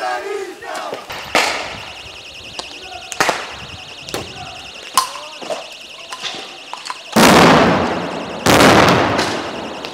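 Tear-gas grenades going off: two loud blasts about a second and a half apart, each fading away over about a second, after several sharper cracks. An alarm sounds steadily underneath.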